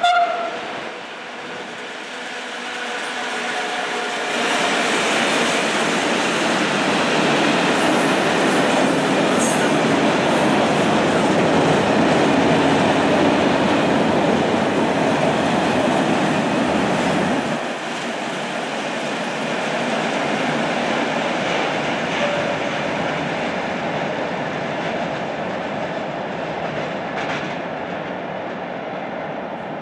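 Freight train of tank wagons rolling past close by, the noise of its wheels on the rails building over the first few seconds and staying loud and steady. It opens with a brief loud tone and steps down a little about two-thirds through as the rest of the train goes by.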